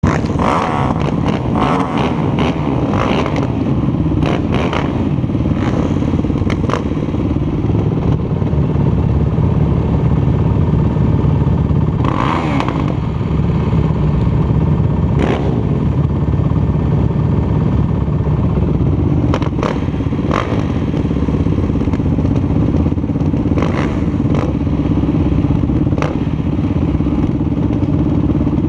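Race quad engines idling at a motocross start gate, a steady loud running, with short sharp clicks and knocks scattered through it.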